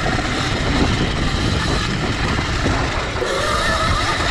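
CZEM Drill One electric dirt bike ridden along a rough dirt trail: a steady, noisy rumble of tyres and chassis over the ground. A faint whine from the electric motor comes in a little after three seconds in.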